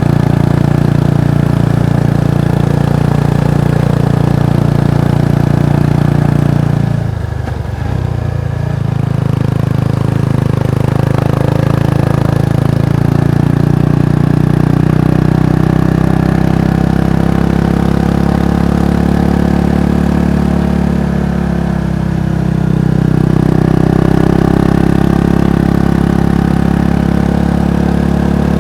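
Exhaust note of a Kawasaki Estrella's 250 cc single-cylinder four-stroke engine running steadily. The sound drops briefly about seven seconds in and shifts again a little after twenty seconds before rising back.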